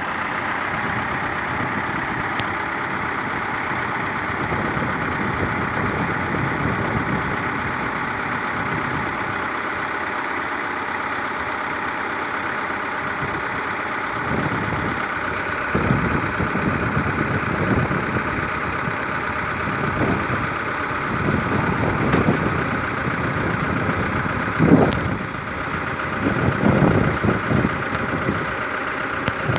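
A vehicle engine running steadily. From about halfway through, the sound turns uneven, with short louder surges.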